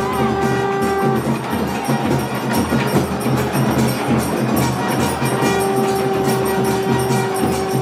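Temple ritual music during an aarti: drums beating steadily under ringing bells or cymbals, with one long steady held note that breaks off about a second in and comes back a little past the middle.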